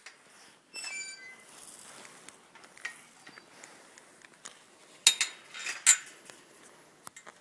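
A gate being opened: a short squeak about a second in, then sharp metal clanks and rattling around five and six seconds in.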